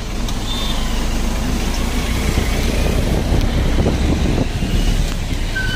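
Steady low rumble of engine and road noise heard from inside a moving bus.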